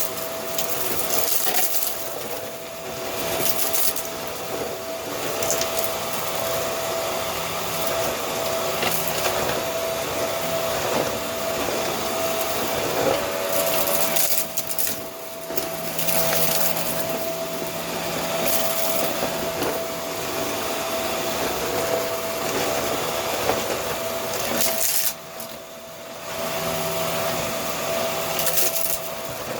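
Vacuum cleaner running, its motor holding a steady whine while the suction noise swells and fades as the nozzle is worked back and forth over a surface. The noise drops briefly about halfway through and again near the end.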